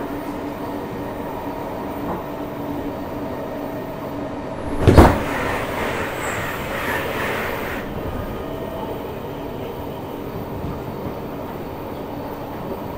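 JR Hokkaido 733 series electric train running at speed, heard from inside the car: a steady rumble of wheels and running gear. About five seconds in comes a sudden loud thud, then about three seconds of louder, hissier rushing that cuts off abruptly.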